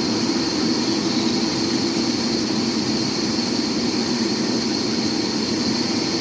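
Sawmill machinery running steadily with a loud, even mechanical noise.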